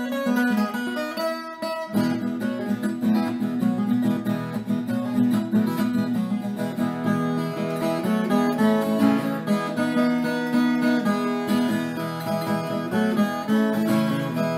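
Acoustic guitar music playing, with a brief break in the low notes about two seconds in.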